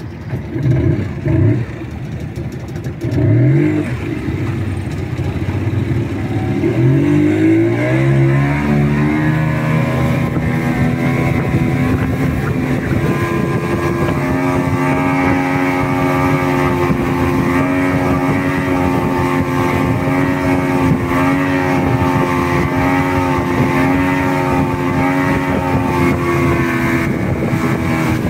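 A motorboat's engine revs briefly twice. Its pitch then climbs over a few seconds as it throttles up, and from about nine seconds in it runs steadily at speed.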